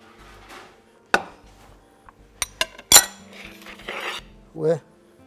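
Metal utensils clinking against cookware: a few sharp clinks, the loudest about three seconds in, followed by a short scraping.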